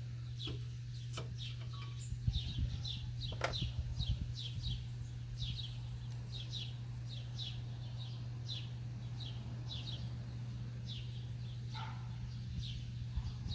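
A bird chirping over and over in short, falling high notes, about two a second. A few light clicks and knocks in the first few seconds, and a steady low hum underneath.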